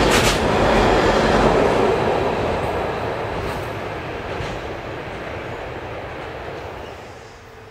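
Freight train of container wagons rolling past and away. The wheel-on-rail noise, with a sharp wheel clack or two at the start as the last wagon goes by, fades steadily as the train runs off into the distance.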